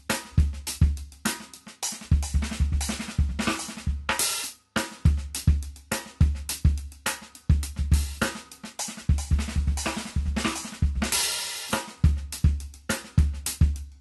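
Sonor drum kit played as a gospel chop exercise: quick sixteenth-note patterns spread over snare, bass drum and hi-hat. Cymbal crashes ring out about four seconds in and again around eleven seconds, with a short stop just before five seconds.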